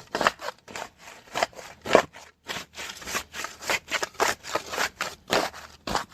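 A hand tool scraping and working damp earth in short, uneven strokes, about two a second.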